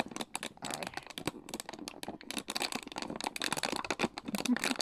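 Empty plastic water bottle crackling and crinkling in rapid, irregular clicks as two puppies chew and paw at it.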